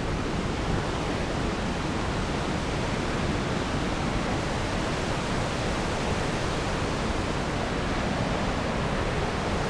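Steady rushing of a fast river flowing nearby, an even, unbroken noise.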